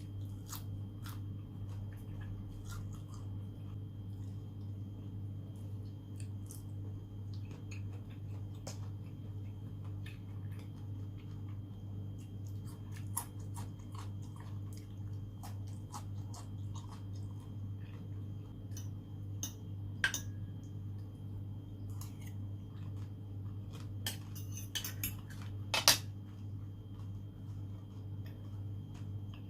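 Close-miked mukbang eating sounds: wet chewing of raw seafood (shrimp and oysters) with small mouth clicks and scattered clinks of cutlery on a dish, over a steady low hum. A few sharper clicks stand out, the loudest near the end.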